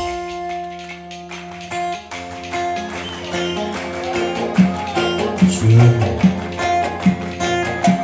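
Live Turkish folk music led by an amplified bağlama (saz): a held note for about two seconds, then a quick plucked melody, with drum beats joining about halfway through.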